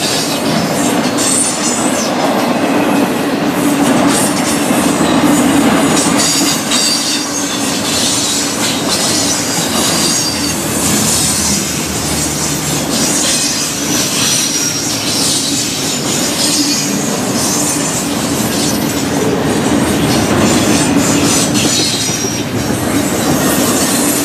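Double-stack intermodal freight cars rolling past: a steady rumble with the clatter of wheels over the rail joints, and high-pitched wheel squeal coming and going.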